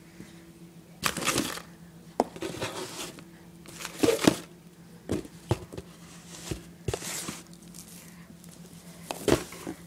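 Crinkly packaging being handled in irregular bursts of rustling and crinkling, with a few sharp knocks and clicks, over a steady low hum.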